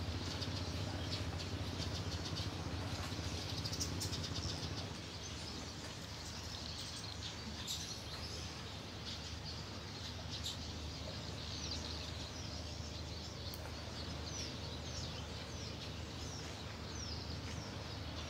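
Small birds chirping outdoors, with a run of short, quick, falling chirps in the second half, over a steady low hum and a wash of background noise.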